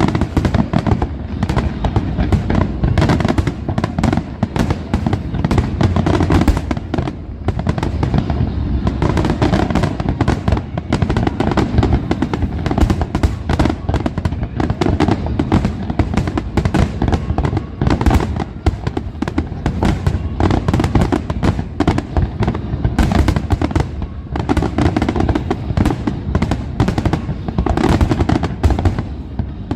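Aerial fireworks in a dense, continuous barrage: shell bursts and crackles come in rapid succession with no pause.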